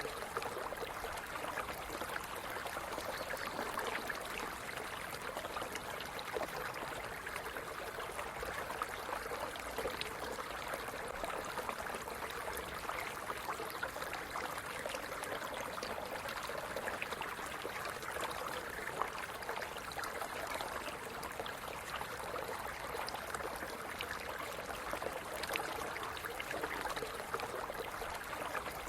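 A small stream running steadily, its water splashing and trickling over stones, with many fine drips and gurgles in an even rush.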